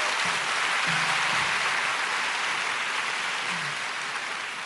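Audience applauding steadily in a large hall, slowly dying down toward the end.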